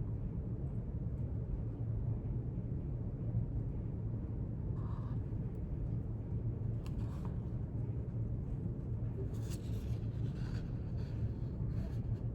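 Steady low rumble of room tone. From about halfway in, faint scattered scratches and rustles of a pen writing on paper during note-taking.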